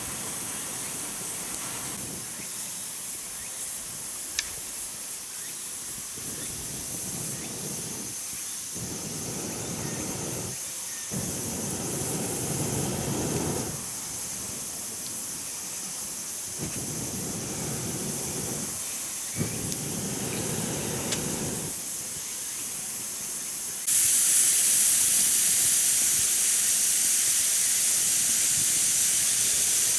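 Oil sizzling in a frying pan over a wood fire, a steady hiss that jumps suddenly much louder about 24 seconds in, as when more goes into the hot pan.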